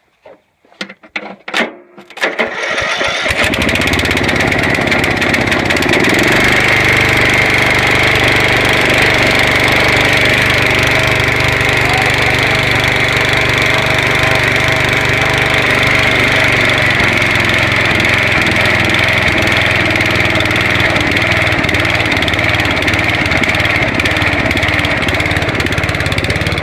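Lawn mower engine, choked, cranking with a few quick knocks and catching about two seconds in, then running steadily with a high whine over its exhaust note. It has just had rust cleaned out of its carburetor bowl and jet.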